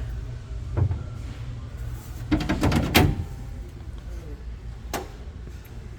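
Steel tool-cabinet door or drawer being handled: a knock about a second in, then a rattle that ends in a sharp metal clack about three seconds in, and a lighter click near the end, over a steady low hum.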